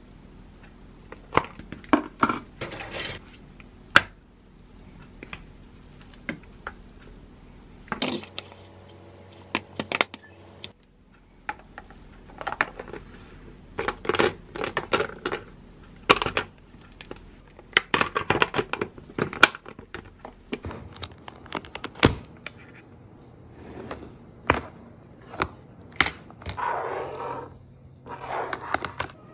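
Chopsticks, a lunch box and its lid and utensils knocking, clicking and scraping as food is packed and the box is handled, in scattered sharp taps with short stretches of rustling between.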